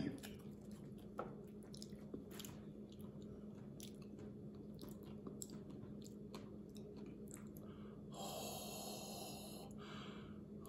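Faint wet mouth clicks and chewing on a super-hot chili tortilla chip over a steady faint hum, then from about eight seconds in a steady hiss of breath through a wide-open mouth against the chili burn.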